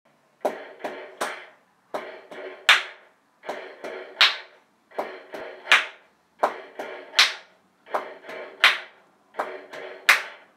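Hands slapping a large yellow dog's side like bongos: a rhythm of three slaps, the third loudest, repeated about every second and a half.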